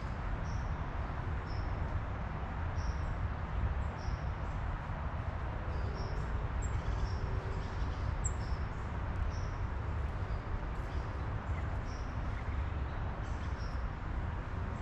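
Small birds giving short, high chirps, repeated every half second to a second, over a steady low rushing background noise.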